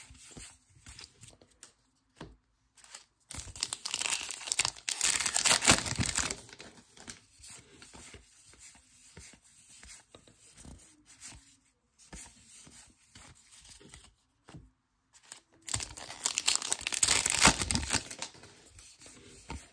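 Baseball card pack wrappers being torn open and crinkled, in two loud stretches: one a few seconds in and one near the end. Faint rustling and clicks of cards being handled come between them.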